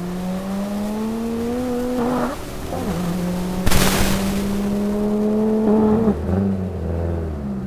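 Audi Ur Quattro's turbocharged five-cylinder engine at full throttle, pulling up through the gears as it accelerates away, with a gear change about two seconds in and another about six seconds in. A brief loud burst of noise comes just under four seconds in.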